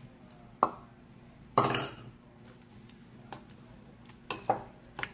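A metal fork clinking and knocking against a glass mixing bowl while flour, egg and water are stirred into batter: a few sharp clinks, with one louder, longer clatter about one and a half seconds in.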